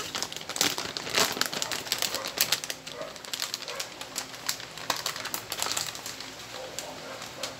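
Plastic anti-static bag crinkling and crackling in a flurry of quick clicks as a graphics card is pulled out of it by gloved hands.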